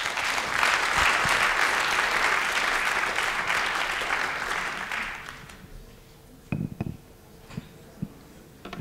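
Audience applauding, fading out after about five seconds, followed by a few scattered knocks.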